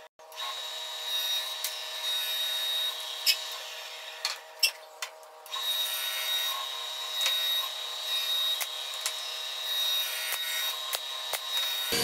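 Wooden birdhouse roof boards being glued, rubbed and pressed together by hand on a workbench, with a few sharp knocks of wood on wood about three to five seconds in. A steady high-pitched tone sounds underneath, breaking off briefly near the middle, and the whole sound is thin, with no low end.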